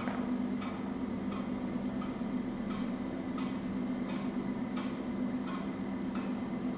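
ERN 150 coil winding machine running slowly while winding a coil: a steady motor hum with a light, regular tick about every two-thirds of a second.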